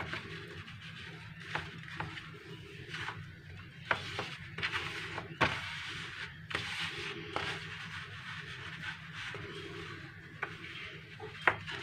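Hands rubbing and folding a rope of pulled sugar syrup through loose flour mixture in a ceramic tray. Soft rustling and scraping, broken by scattered sharp clicks, over a steady low hum.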